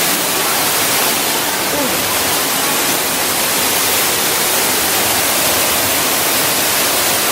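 A waterfall close by: a loud, steady rush of falling water that does not change.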